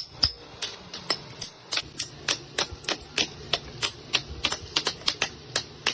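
Rapid run of sharp taps, about three to four a second, from a hand tool striking during the making of conch-shell (shankha) bangles.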